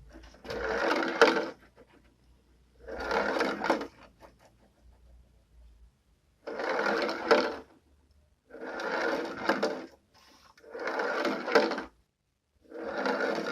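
Beads rolling across a plastic tray in six rattling runs of about a second each, with a few sharp clicks inside each run, separated by short pauses.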